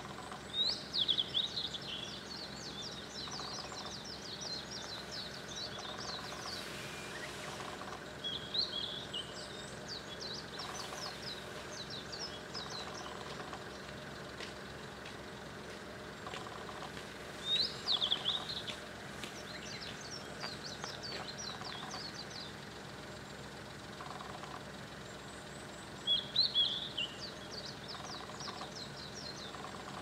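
Male blue-and-white flycatcher singing: four loud phrases of clear, high whistled notes, about eight or nine seconds apart.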